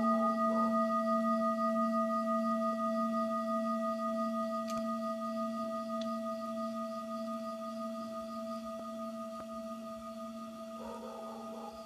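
Singing bowl ringing and slowly fading, its several overtones wavering gently.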